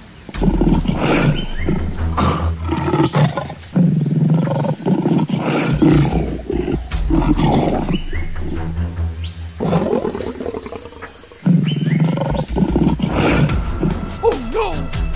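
Big-cat growls and roars laid over background music, in long stretches with a short lull about ten seconds in.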